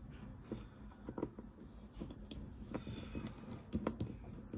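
Scattered light clicks and taps of a bare slot-loading DVD drive being handled and fitted into the Apple USB SuperDrive's casing.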